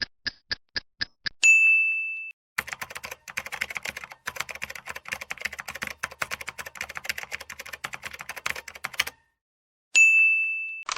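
Manual typewriter: a few quick, evenly spaced clicks, the carriage bell dinging about a second and a half in, then a dense clatter of typed keystrokes for about six seconds, a short pause, and another bell ding near the end.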